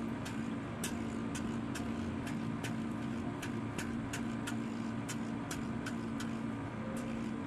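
Facial treatment machine running: a steady motor hum with sharp, regular clicks about two a second. The hum drops out briefly near the end.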